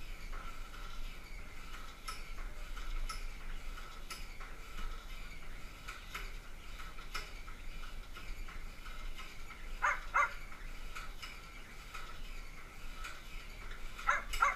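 Jump rope skipping on a gym floor, its light ticks faint under a steady outdoor chirring. Two quick pairs of short animal calls stand out, about ten seconds in and again near the end.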